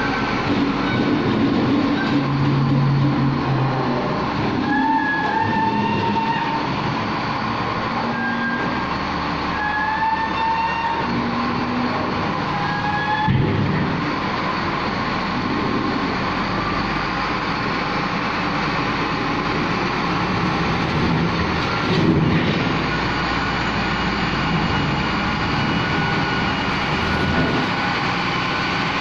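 LiuGong wheel loader's diesel engine running steadily as the machine works, with a few short high squeals in the first half and a couple of sharp knocks later on.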